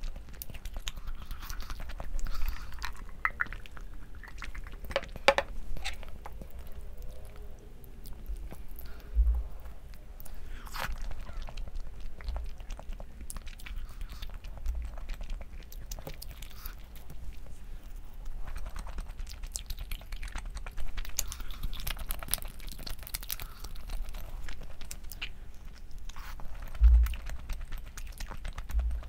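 A person chewing and biting food, with scattered sharp crunchy clicks and a few dull low thumps, the loudest thump near the end.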